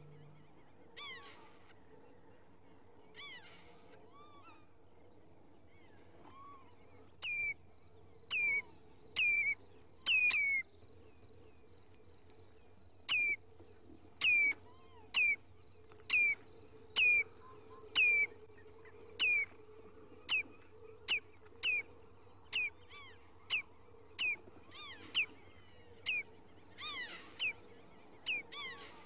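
Bird-like chirping calls in an electro-acoustic score, each a short call that drops quickly in pitch. A few come spread out at first, then about one a second from around seven seconds in, over a faint steady hum and a thin high tone.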